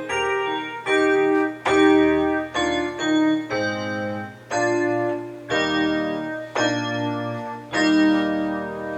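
Church keyboard playing slow sustained chords over a bass line, the chord changing about once a second: postlude music after the service.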